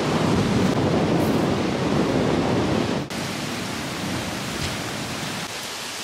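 Strong wind blowing across the microphone: a loud, rumbling rush. It drops suddenly about three seconds in to a softer, steady rush.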